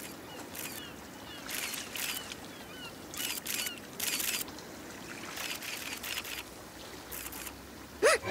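Camera shutter clicks, fired in several quick clusters over a faint steady hiss, with small falling chirps in the first couple of seconds. A short, loud cry sounds just before the end.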